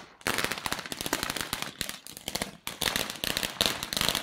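A rapid rattle of firecracker bangs, many a second, like a firecracker chain going off, with a couple of brief gaps.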